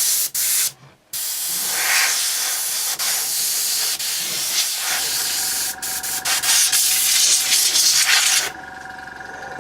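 Compressed air hissing in long blasts with a few brief breaks, blowing debris off an iPad 2 before the new digitizer screen goes on. A fainter steady hum sets in about halfway and carries on after the air stops, a little before the end.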